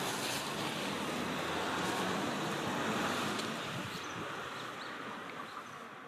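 Steady rushing of river water flowing over stones, an even hiss without any clear pitch, easing off slightly near the end.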